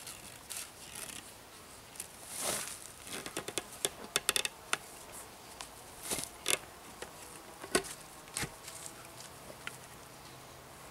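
Peeled round logs being shifted and set into place by hand on a log bench frame: scattered wooden knocks and clicks with some scraping, busiest in a quick run of clicks a few seconds in.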